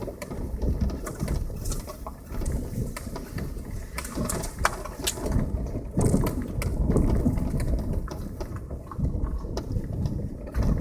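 Passenger car driving over a rough road: a steady low rumble with frequent sharp knocks and rattles.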